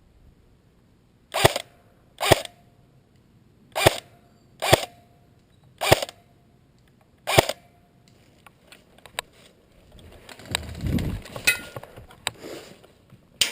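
Airsoft rifle fired in single shots: six sharp cracks at uneven spacing over about six seconds, each followed by a short hum. After that come scattered small clicks and a low rumbling rustle of handling or movement.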